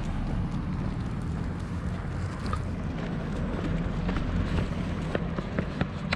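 Wind buffeting the microphone, a steady low rumble. A few light clicks come near the end.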